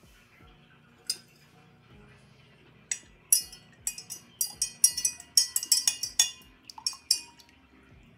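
Rapid, irregular clinking of glass or ceramic coffee ware: a single clink about a second in, then a quick run of a dozen or more sharp, ringing clinks over about four seconds.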